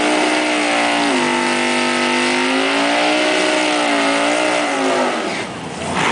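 Car doing a burnout: the engine is held at a steady pitch, dips briefly about a second in, wavers, then lets off about five seconds in, over the hiss of the spinning tyres.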